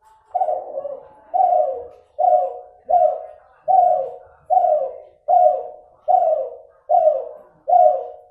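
Spotted dove (Kelantan derkuku cross) cooing in a steady series of about ten short, loud, falling coos, roughly one every 0.8 seconds. The breeder calls this bird's voice still nasal.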